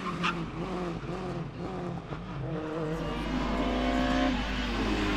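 Race car engine heard at a distance, its pitch rising and falling repeatedly as it revs and lifts through corners. A lower steady engine rumble joins about three seconds in.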